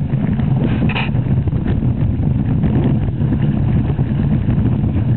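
Strong wind buffeting the microphone as a loud, steady low rumble, with water splashing against the hull of an open canoe under sail.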